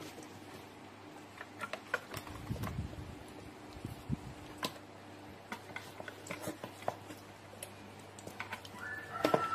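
Hands rubbing marinade into a raw whole chicken in a plastic bowl: scattered wet squishes, small clicks and taps, with a few soft low thuds about two to three seconds in. A high steady tone starts near the end.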